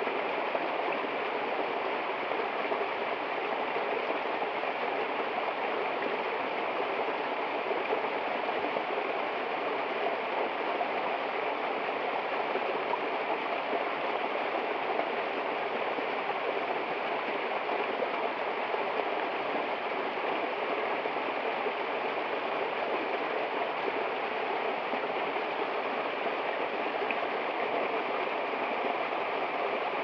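Small waterfall splashing down a rock face into a shallow pool: a steady sound of falling water with no let-up.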